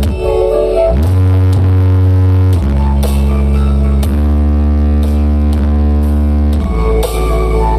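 Loud electronic dance music over a large sound system, built on heavy sustained bass notes that change every second or two under layered synth tones.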